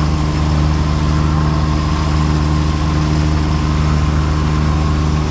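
Sailboat's engine running steadily as the boat motors along, a low even drone with a hiss over it.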